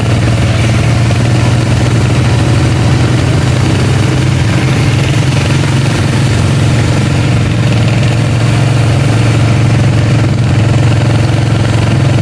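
Small engine running steadily at low throttle, driving a front-mounted fan propeller on a slowly moving motorcycle.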